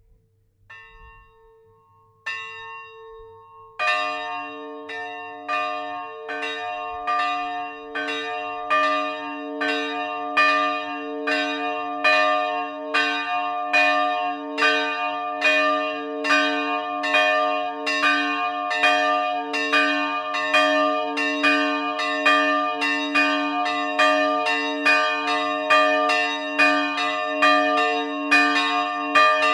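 Two bronze church bells swinging in full peal: the small 60 kg bell tuned B" strikes alone at first, faintly, and the large 160 kg bell tuned D#/Eb" joins about four seconds in. Both then ring together, their clapper strikes overlapping in a steady, even rhythm.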